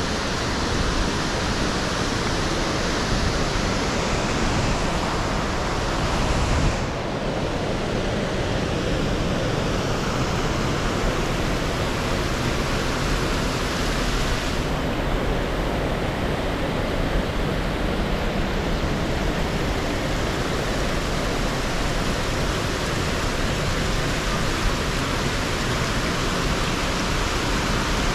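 A waterfall's steady, even rush of falling water. Its high hiss dims a little about seven seconds in and again about halfway through.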